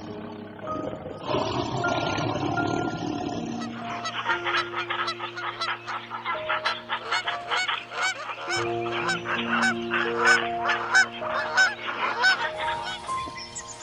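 Black swans calling: a run of repeated honking calls, two or three a second, from about four seconds in until near the end, over background music with sustained chords. Before the calls, a rough, noisy sound lasts for a couple of seconds.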